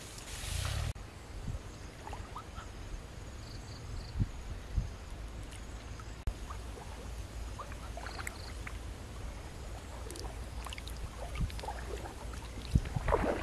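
A duck dabbling in shallow water among reeds, giving faint splashes and small water sounds over a steady low rumble, likely wind on the microphone. In the first second there is rustling through tall grass, and near the end a louder rustle.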